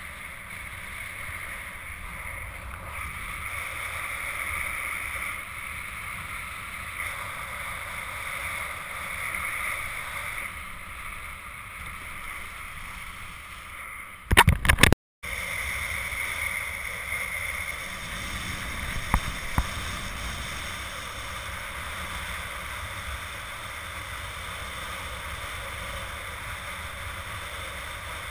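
Steady rush of wind and water around a hydrofoil kiteboard under way. About fourteen seconds in a short burst of loud knocks breaks through, followed by a moment of silence.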